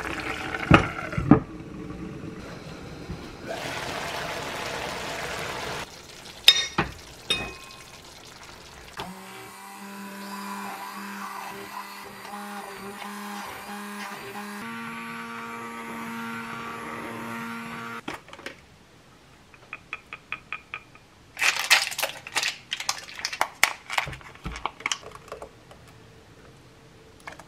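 Stick blender puréeing cooked potatoes and carrots in a pot: a steady motor hum for about nine seconds that steps up in pitch partway through. Sharp knocks and clatter from the pot come before and after it.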